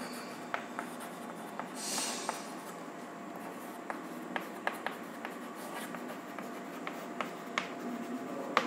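Chalk writing on a blackboard: an irregular string of light taps and short scratches as letters are written.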